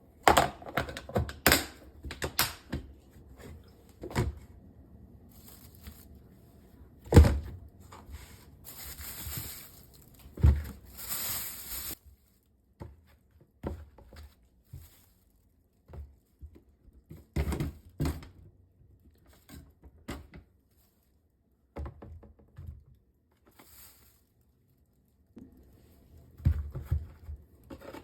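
Objects being handled and set down: an irregular run of clicks and thunks, the loudest about seven and ten seconds in. Between about eight and twelve seconds in there is a few seconds of crinkling, like packaging being handled.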